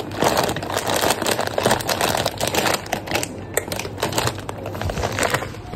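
Plastic toffee packet crinkling and rustling as the sweets inside are handled, a dense run of crackles that thins to scattered clicks after about three seconds.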